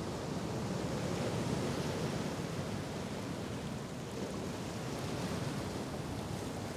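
Steady rush of sea surf breaking, with some wind.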